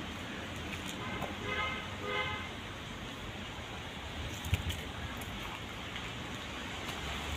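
Steady outdoor background noise, broken by two short, steady-pitched toots in quick succession about a second and a half in, typical of a vehicle horn in the distance, and a single brief knock a few seconds later.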